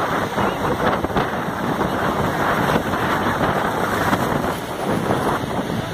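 Steady rushing noise of Niagara Falls and the churning water below it, mixed with wind buffeting the microphone.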